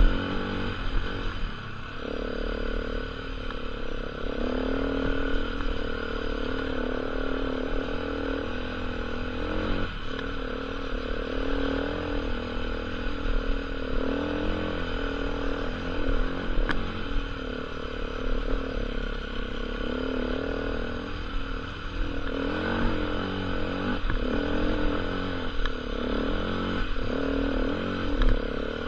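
KTM EXC 450's single-cylinder four-stroke engine running as the enduro bike is ridden off-road, its pitch rising and falling with the throttle, with a brief dip about a third of the way in and again later on.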